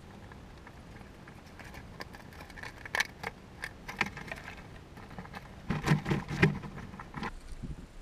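Chipmunk scrabbling and handling food right against the camera, a run of irregular close clicks and scratches that is loudest about six seconds in.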